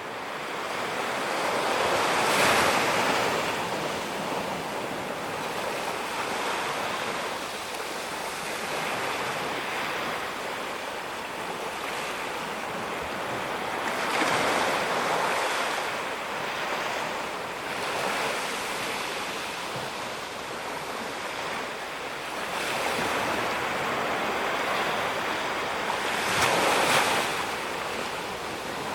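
Sea surf breaking on a sandy beach: a continuous wash of waves with larger breakers swelling up about every twelve seconds, and wind buffeting the microphone.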